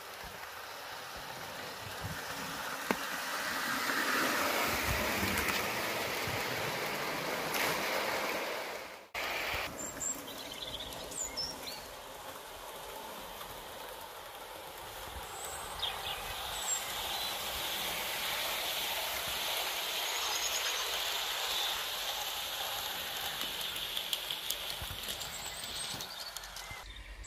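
Model trains running on an outdoor garden layout: a steady rumble and clatter of small metal wheels on the rails that swells and fades as the trains pass, breaking off abruptly about nine seconds in before picking up again. Birds chirp briefly now and then over it.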